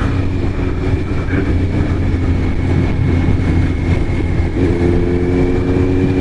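Kawasaki Z900RS inline-four running through its K-Factory titanium full exhaust while riding at a steady pace. About four and a half seconds in the engine note steps up in pitch and holds there.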